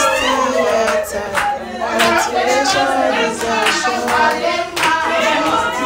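A group of people singing together, with hands clapping in time about twice a second.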